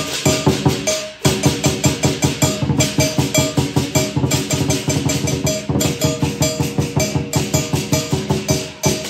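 Teochew lion dance percussion playing a fast, steady beat: drum strokes with clashing cymbals and gong, several strokes a second, with a short break about a second in.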